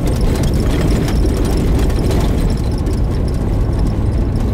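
Car driving on a narrow, cracked concrete road with loose gravel shoulders, heard from inside the cabin: a steady engine and tyre rumble with scattered light ticks and clicks.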